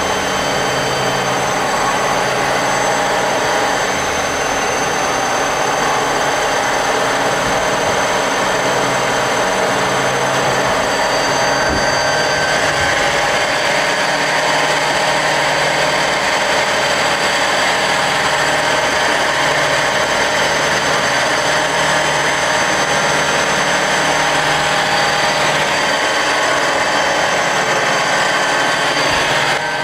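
Mazak CNC lathe in its milling cycle: a live-tool ball end mill in a right-angle holder cuts a hex flat into a shaft, with coolant spraying. A steady machine running noise with a constant high-pitched whine.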